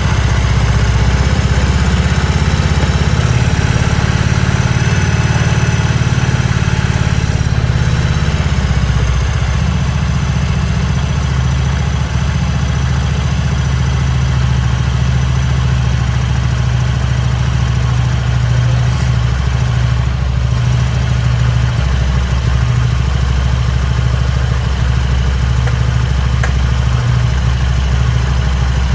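Harley-Davidson Sportster V-twin idling steadily, running on a jump start from a battery jump-starter pack after four months in storage with a flat battery.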